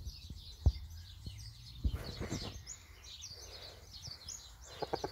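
Small birds chirping in quick, high twitters, with a few dull knocks. Near the end, a rapid run of chicken clucks starts up.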